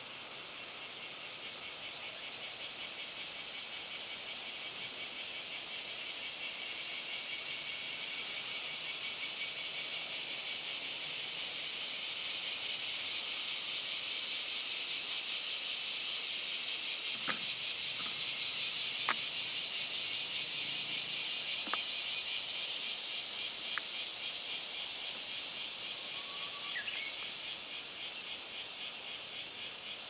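Male bear cicadas (kumazemi) singing: a dense high buzz that swells, from about ten seconds in, into a loud pulsing song of about four to five pulses a second, then drops back to a steady drone a little past the middle. A few faint clicks come in the middle, and a faint whistled note, typical of a Japanese bush warbler, comes near the end.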